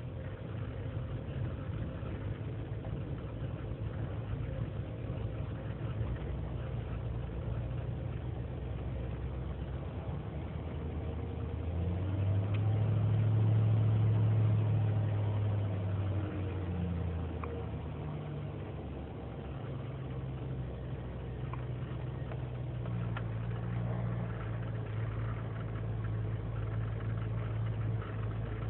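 2003 GMC Sierra's 5.3-litre V8 idling cold and erratically on its own. About twelve seconds in, the idle climbs to around 1600 rpm and grows louder, then settles back down a few seconds later. The owner traces this rough cold idle, which comes with lean and misfire codes, to a failing intake manifold gasket.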